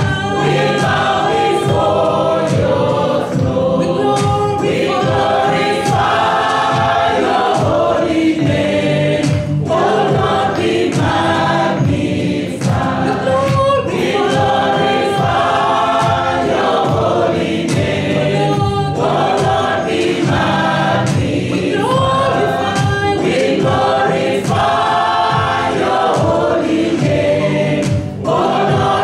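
A choir singing a gospel worship song over instrumental backing.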